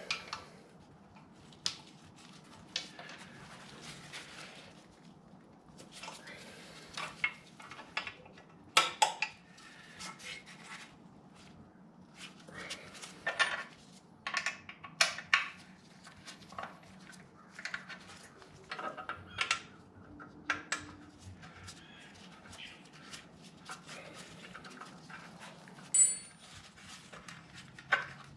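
Hand tools and small metal parts clinking and clattering at irregular intervals as Torx screws and a spacer are taken out during motorcycle disassembly, over a faint steady hum.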